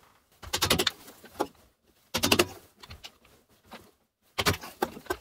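Hammer blows on a round wooden dowel, driving the spindle shaft out of a Killinger KM 1500 SE wood lathe's headstock so that its bearings can be replaced. The blows come in clusters of quick knocks, the strongest about half a second, two seconds and four and a half seconds in, with lighter single taps between.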